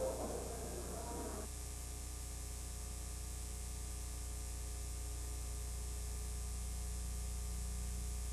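Steady low electrical hum with hiss, the background noise of an old film soundtrack. A busier, muffled sound underneath stops abruptly about a second and a half in.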